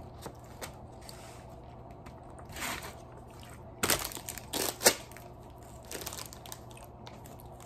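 Crinkly plastic snack bag being picked up and handled: a few short rustles, loudest about four to five seconds in.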